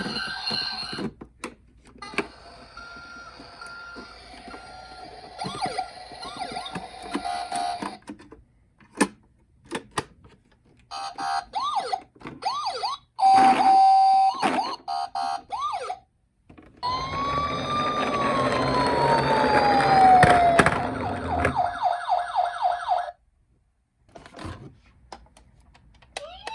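Electronic sirens of several toy ambulances and police cars sounding one after another, each with a different pattern. They include a tone that rises and then glides down, and fast repeated sweeps, with short gaps and small clicks between vehicles.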